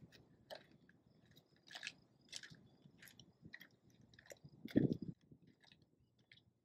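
Faint footsteps of sport sandals on gritty asphalt: soft crunching scuffs at a walking pace of about two a second, with one heavier step near the end.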